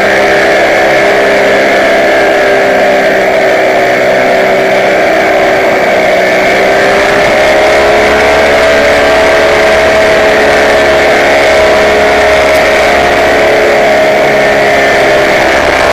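Paramotor engine running steadily in flight, its pitch rising a little about seven seconds in.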